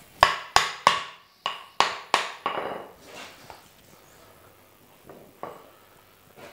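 A white plastic mallet striking the back of a butcher's knife to drive it through a ram's backbone and cut a loin chop: six sharp knocks in quick succession, the steel blade ringing briefly after each, then a few lighter taps.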